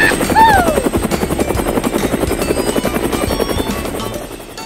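Cartoon helicopter sound effect: a fast, even rotor chop that fades toward the end as the helicopter flies off. A short falling squeak comes about half a second in.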